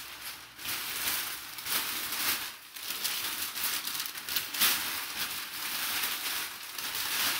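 Crumpled brown kraft packing paper rustling and crinkling as hands pull it out of a cardboard box, with several louder swells as handfuls are lifted.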